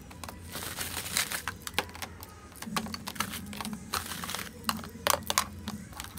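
Small clear plastic lash cases clicking and knocking as they are handled and set down one after another into a plastic storage organizer.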